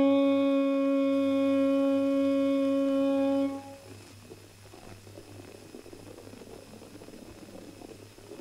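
One long, steady musical note with many overtones, held for about three and a half seconds and then cut off sharply, leaving only a faint, uneven low rustle.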